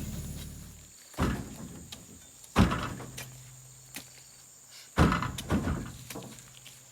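Truck engine running, then cutting off abruptly about a second in, followed by four heavy thuds a few seconds apart.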